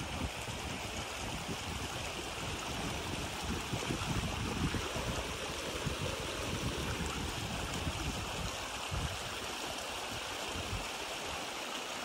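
Small shallow stream flowing steadily over stones and pebbles, a continuous babble of running water.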